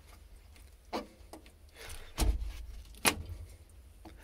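Rusty dash switches in a derelict Hitachi UH123 excavator cab being worked by hand: a few sharp clicks and knocks, the loudest about a second in and near three seconds in, with low handling rumble between.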